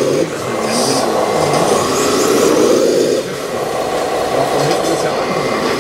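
Radio-controlled scale model Scania tipper truck driving through sand: a steady mechanical running sound from its drive that drops in level twice, just after the start and about three seconds in.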